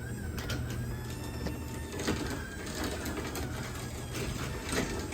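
LiftMaster DC-motor chain-drive garage door opener running as it closes the door: a steady motor hum and faint whine with light clicking and rattling from the chain and trolley.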